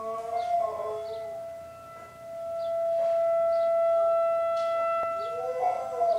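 Tornado warning siren holding one steady tone, growing louder about two seconds in and then easing off, with a dog howling along over it at the start and again near the end.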